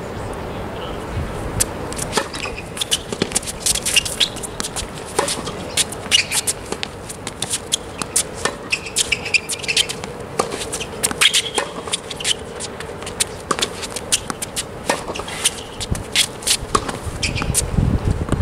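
A tennis rally on a hard court: a serve and then a run of sharp knocks from racket strikes and ball bounces, with shoes scuffing on the court between shots.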